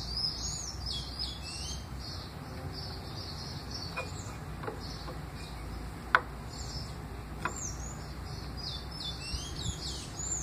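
Small birds chirping busily throughout, with a few small sharp clicks from a caliper being handled against a distributor, the loudest about six seconds in.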